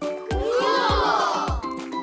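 Upbeat background music with a steady drum beat. About a quarter second in, a sound effect of many overlapping rising-and-falling tones swells up, then fades by about a second and a half in.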